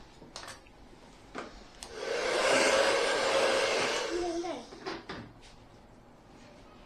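A hair dryer blowing in one stretch of about two seconds, starting about two seconds in and then stopping, with a few light clicks around it.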